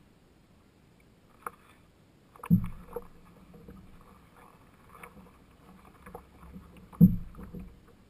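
A canoe being paddled, heard from a camera mounted on the hull. There are two strong strokes, about two and a half and seven seconds in, each a loud low thump followed by a short wash of water. Smaller water ticks and knocks fall between them.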